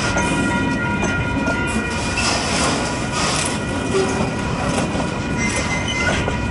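Loaded container flat wagons of a freight train rolling slowly past close by, steel wheels rumbling and clicking over the rail joints, with thin steady high-pitched tones over the rumble.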